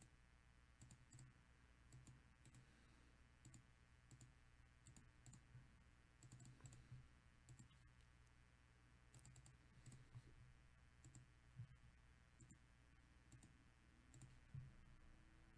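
Faint, irregular clicks of a computer mouse and keyboard in a near-silent room.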